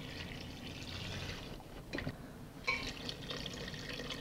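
Cold water poured from a glass carafe into a stainless-steel pot of veal cubes and vegetables, a steady splashing fill that eases for about a second midway and then picks up again.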